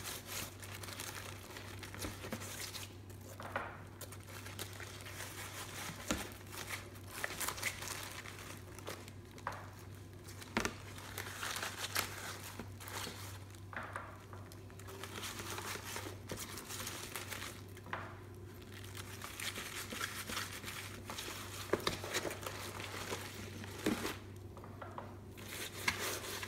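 Napa cabbage leaves rustling and crinkling irregularly as hands rub salt between them, over a steady low hum.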